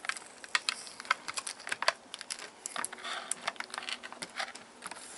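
Stiff clear plastic clamshell packaging being gripped and lifted, giving irregular sharp clicks and crinkles.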